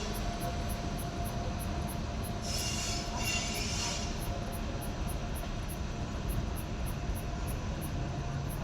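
Empty freight wagons rolling past with a steady rumble, and two short high-pitched wheel squeals about two and a half and three and a half seconds in.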